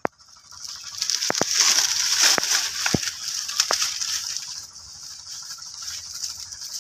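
Dry banana leaves and foliage rustling and crackling as macaque monkeys leap and scramble through the plants, with several sharp snaps. The rustling swells about a second in and eases off after about four and a half seconds.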